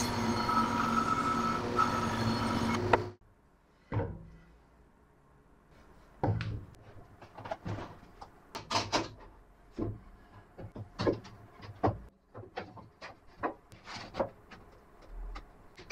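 A workshop power tool running steadily, cut off abruptly about three seconds in. Then a scattered series of short, sharp knocks and clacks.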